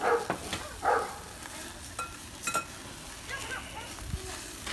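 Burgers sizzling on a small charcoal grill over open flame. Two short, loud calls come near the start, and a few brief faint chirps follow about two seconds in.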